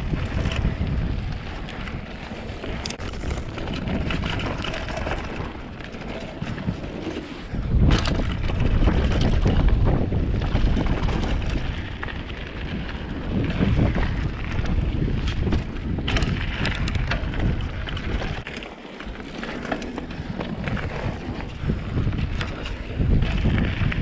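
Wind buffeting the microphone of a mountain bike's on-board camera while riding fast downhill, over the rumble of tyres on a gravel trail and scattered knocks and rattles from the bike hitting bumps.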